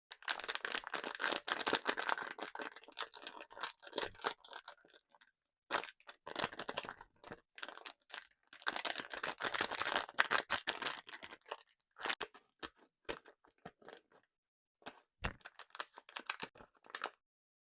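Close-miked crunching of hard, crunchy candy: dense crackly crunches in four bursts with short pauses between them.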